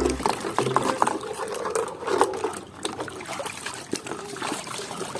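Water splashing and trickling as muddy toys are washed, with many short clicks and knocks from the toys being handled.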